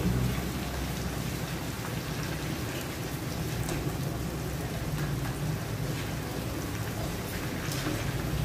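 Breaded shrimp deep-frying in hot oil in a wok: a steady sizzle with fine crackles.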